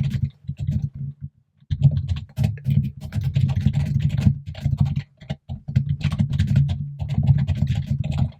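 Fast, loud typing on a computer keyboard: a dense run of key clicks and thuds with a brief pause a little after a second in.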